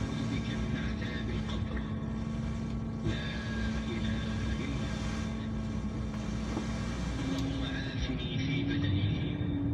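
Vehicle engine and road noise while driving: a steady low rumble with a constant engine note that rises in pitch in steps about seven seconds in.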